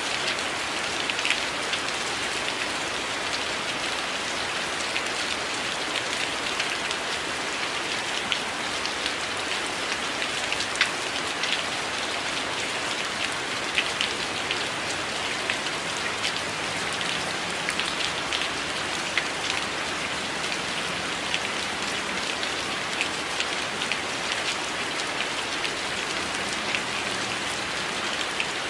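Steady rain falling on a window: a constant hiss with many sharp individual drops ticking through it.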